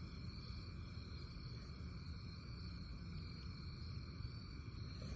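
Insects chirping in a steady chorus, several high tones held without a break, over a low steady rumble.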